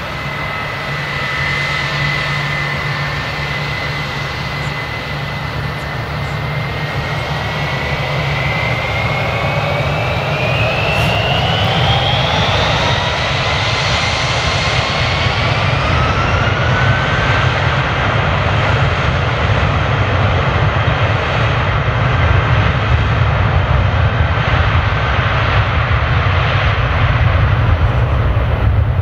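Airbus A319-132's twin IAE V2500 turbofan engines at takeoff power during the takeoff roll: a steady jet rumble with a fan whine that climbs in pitch around the middle. The low rumble grows louder toward the end.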